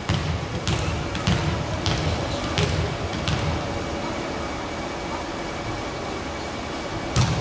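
A volleyball bounced on a gym floor about six times at an even pace, then a single sharper hit near the end, with hall reverberation.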